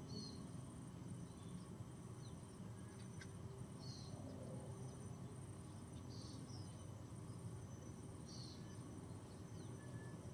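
Insects calling from mangrove trees: a steady, very high trill with brief breaks, and short chirps repeating about every two seconds, over a faint low background rumble.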